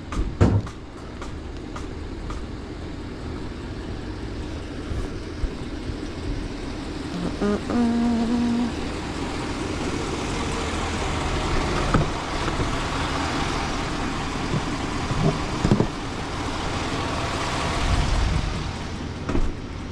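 Road traffic passing: a steady rush of tyres and engines that swells and fades. A few knocks are heard, the loudest just after the start, and a short tone sounds about 8 s in.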